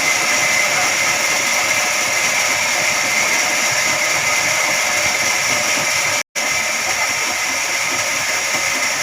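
Band sawmill running, a steady machine noise with a high whine in it, broken by a split-second silence about six seconds in.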